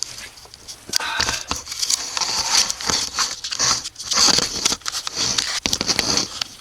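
Irregular crinkling and scraping handling noise broken by short clicks, from hands and tools working inside the car's rear seat area.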